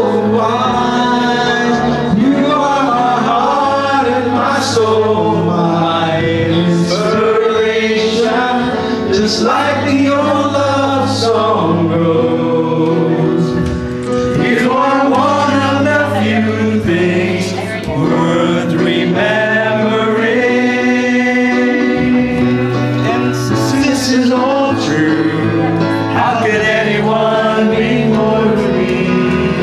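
Men singing a harana serenade love song over instrumental accompaniment. One lead male voice on a microphone, with a group of male voices joining in.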